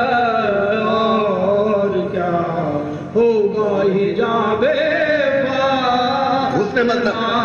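Men chanting soz, the Urdu elegiac recitation, in long drawn-out melodic notes. A lead reciter sings into the microphone and a second man's voice supports him. There is a short dip about three seconds in before the next phrase rises.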